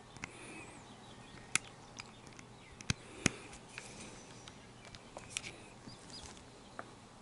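Scattered light clicks and taps of small parts and wires being handled, with three sharper clicks around the middle, over faint steady hiss.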